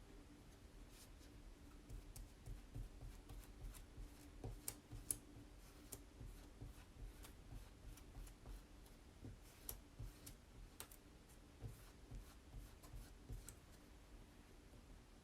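Faint, irregular small clicks, taps and light scrapes from hands working a craft transfer and tools on a wooden tag, several a second through the middle of the stretch.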